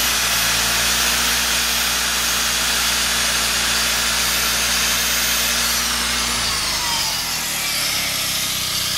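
Honda ES6500 generator engine running fast under an electrical load, with a high electric-motor whine from what it is powering. About five and a half seconds in, the whine winds down, and the engine drops back from its loaded speed soon after.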